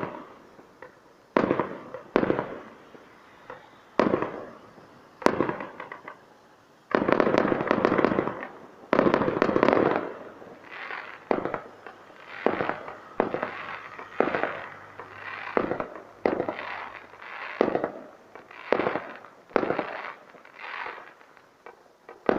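Fireworks exploding in a long run of sharp, echoing bangs. A few are spaced out at first, then comes a dense barrage about a third of the way in, followed by bangs in quick succession roughly every second.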